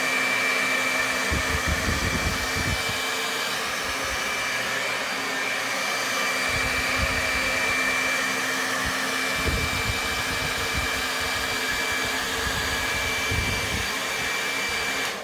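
Handheld hair dryer running steadily: a rush of air with a thin whining tone, and low rumbles that come and go. It stops at the end.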